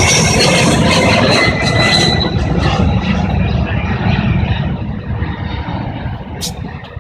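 Boeing C-17 Globemaster III's four turbofan engines at takeoff thrust, a loud jet roar that loses its high hiss after a couple of seconds and fades steadily as the aircraft climbs away. A brief sharp click near the end.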